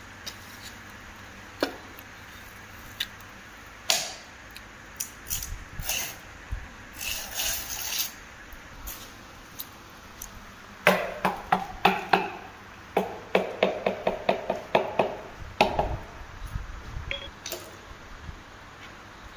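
A small hammer tapping ceramic tiles to bed them into cement mortar. A few separate knocks and clatters come first, then from about the middle quick runs of light taps, several a second.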